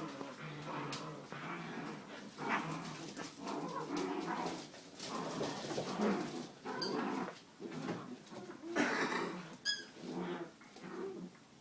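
Puppies whimpering and growling, with short yips and a scatter of sharp clicks and knocks throughout.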